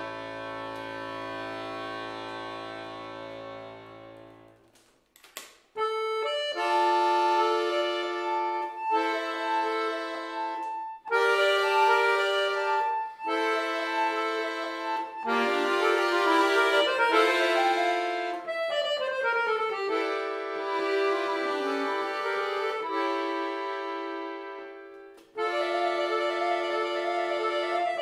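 Chromatic button accordion playing a slow solo. A held chord with bass notes fades away over the first few seconds. After a brief pause come sustained treble chords, each held for a couple of seconds, with a short descending run about two-thirds of the way in.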